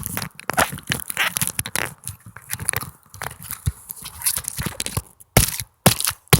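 Handling noise of the recording camera being moved and repositioned: dense, irregular crackling, crunching and rustling clicks, cutting out briefly twice near the end.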